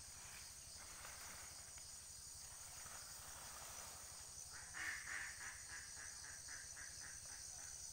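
Faint, steady high-pitched drone of insects, with a bird calling in a quick run of repeated notes, about four a second, starting a little past halfway.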